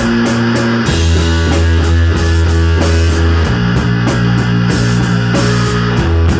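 Rock band playing live: guitar over sustained bass notes with a steady drumbeat, the full band coming in heavier about a second in.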